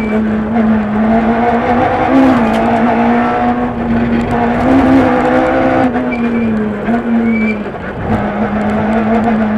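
Peugeot 106 F2/13 rally car at speed, heard from inside the cabin: the engine runs hard under a steady haze of road and tyre noise. Its pitch dips briefly about eight seconds in.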